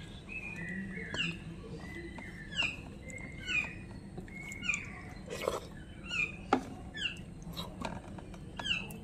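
A bird chirping repeatedly: short, high, downward-slurred calls about once a second. Two sharp clicks come a little past the middle.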